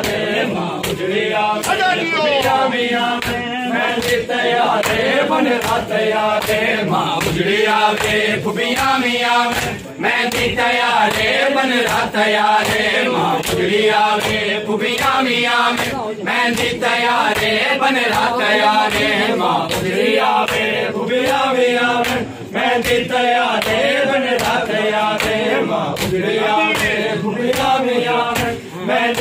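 A group of men chanting a noha together, with the sharp slaps of matam (hands striking bare chests in unison) keeping a steady beat, roughly one and a half strikes a second.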